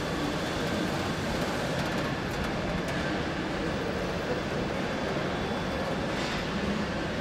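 Steady car-factory floor noise: an even rumble and hiss with no distinct knocks or tones.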